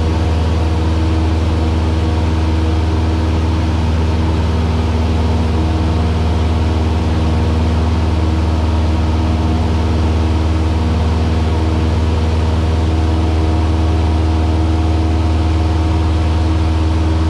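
Single-engine Cessna's piston engine and propeller running at a steady, unchanging pitch, a loud continuous drone.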